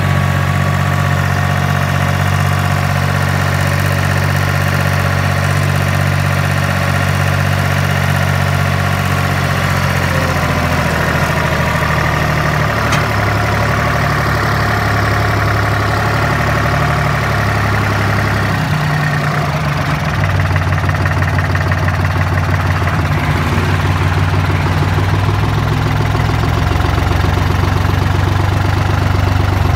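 New Holland tractor's diesel engine running steadily as it hauls a loaded manure trailer, heard from the driver's seat. About two-thirds of the way in the engine note drops briefly, then comes back a little louder.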